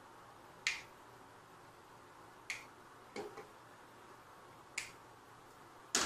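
Sharp, separate snips and clicks of small hand tools such as side cutters, working a small part over a wooden bench, five or so spaced a second or two apart. Near the end comes a louder double knock as a tool is set down on the bench.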